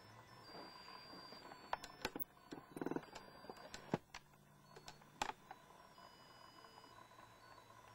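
A few sharp clicks and knocks over a faint steady hum, with a short buzzing rattle about three seconds in.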